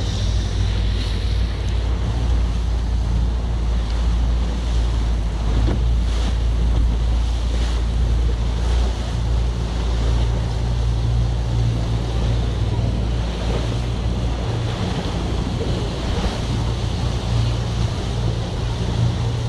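Speedboat under way: its engine running with a steady low hum, mixed with water rushing past the hull and wind buffeting the microphone.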